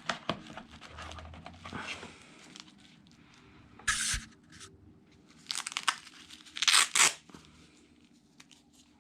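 Unboxing handling noise: rustling, then a short ripping sound about four seconds in and a louder run of rips around six to seven seconds, as the multitool and its nylon sheath are handled and unpacked.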